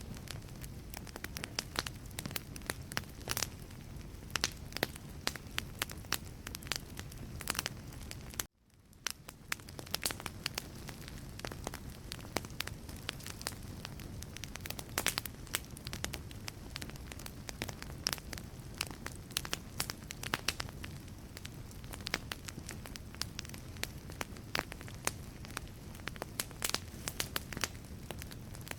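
Wood fire burning in a fireplace, crackling with frequent sharp pops over a steady low rush of flame. About eight and a half seconds in, the sound cuts out abruptly and fades back in within a second.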